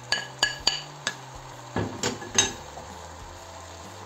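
Utensil clinking and knocking against a dish and the cooking pan as scrambled egg is added to fried rice. About seven sharp, ringing clinks come in the first two and a half seconds, then it goes quiet.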